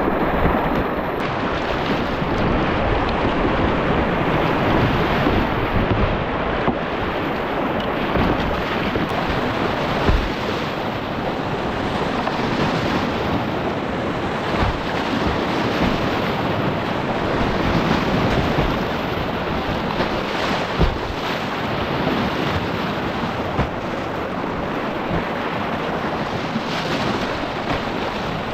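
Whitewater of a class II–III creek rapid rushing and splashing around a kayak running it, a steady dense rush of water with a couple of brief sharper splashes.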